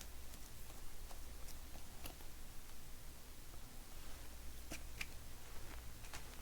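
Trading cards being handled and flipped through by hand: a few faint, short slides and clicks, the clearest about two seconds in and near the end, over a steady low electrical hum.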